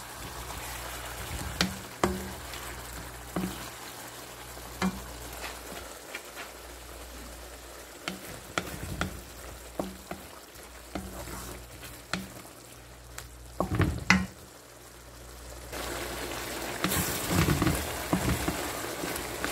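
Tomato and onion sauce simmering and sizzling in a frying pan, with scattered knocks and scrapes of a wooden spatula stirring against the pan and a louder clatter about two-thirds of the way through. The sizzle grows louder near the end.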